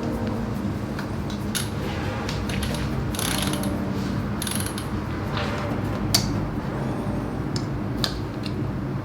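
Irregular mechanical clicks, ticks and short scrapes from hands-on work on a bicycle's wheels and parts, over quiet background music.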